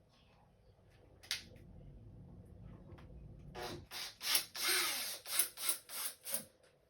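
Replacement metal grill assembly of a QSC K12.2 loudspeaker being pressed and worked into the cabinet: a single click about a second in, then a run of loud scraping, rubbing strokes, about three a second, over the last three seconds.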